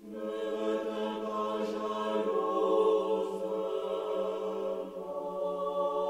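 Choir singing a liturgical chant, voices holding long sustained notes. A new phrase begins right at the start, and the chord shifts at about two and five seconds.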